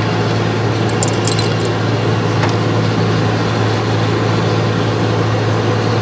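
Steady low mechanical hum, with a few faint light clicks between one and two and a half seconds in.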